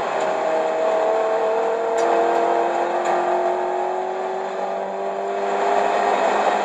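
1995 Plymouth Neon ACR's 2.0-litre SOHC four-cylinder engine pulling under acceleration, its pitch climbing slowly and steadily, heard from inside the cabin.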